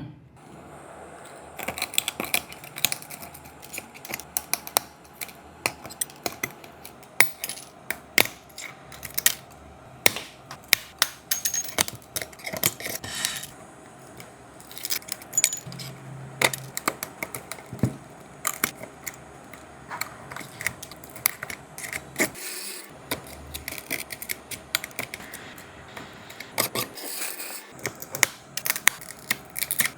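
Small hand tools working on an iPhone 16 Pro Max with cracked back glass: many sharp, irregular clicks and taps of hard tools against glass and the phone's frame, several a second.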